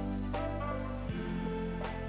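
Background music: held chords with a light percussive hit twice, the chord changing about a second in.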